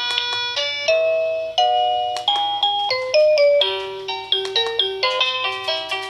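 Electronic doorbell chime tune playing from the Cyber-Bay video doorbell's indoor monitor speaker: quick bell-like notes one after another in a melody, one of the unit's eight selectable doorbell tunes being previewed.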